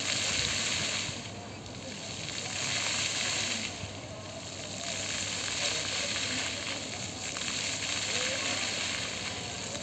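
Water jets of a dancing fountain spraying and splashing into a shallow basin: a steady hiss of falling water that swells and eases as the jets rise and fall.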